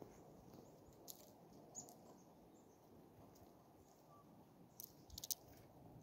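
Mostly near silence, broken by a few faint sharp clicks. About five seconds in comes a quick cluster of clicks and a soft thump: a black-capped chickadee landing on a palm of sunflower seeds and stirring the seeds.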